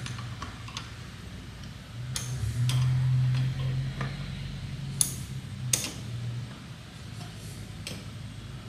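Small ratchet wrench clicking as it turns the speed bleeder valve on a rear brake caliper, in a few scattered sharp clicks, the loudest two about five and six seconds in. A low steady hum runs underneath, louder for a couple of seconds about two seconds in.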